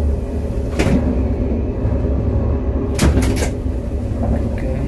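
Steady low rumble of a KTX high-speed train running, heard inside the carriage. A single knock comes about a second in, and a quick run of knocks follows about three seconds in.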